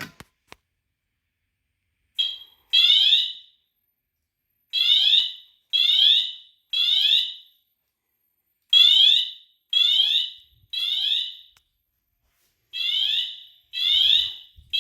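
Fire alarm system in alarm after a manual pull station is pulled: an electronic alarm tone sounding in the temporal-three evacuation pattern, three short pulses about a second apart, then a pause, repeating. It starts about two seconds in.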